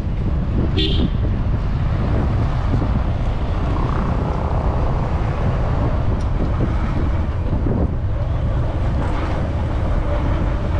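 Wind buffeting a helmet-mounted microphone on a moving motorcycle, a steady low rumble, with the motorcycle running underneath.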